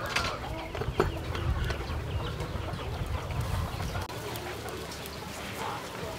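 Chickens clucking in the background over a steady low rumble, with a sharp click about a second in.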